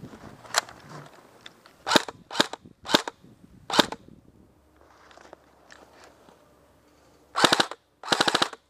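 Airsoft rifle firing: about five single shots in the first four seconds, then two short full-auto bursts near the end.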